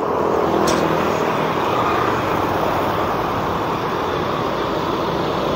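Street traffic going by, mostly motorcycles with some cars: a steady mix of small engines and tyre noise on the road.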